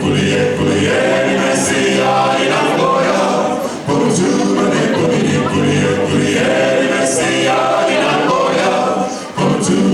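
Male a cappella vocal group singing a gospel song in close harmony, the voices breaking off briefly twice.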